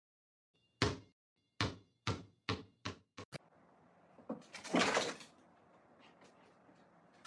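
A series of sharp knocks, about seven, coming faster, then a rustling, scraping noise with a louder rush about five seconds in.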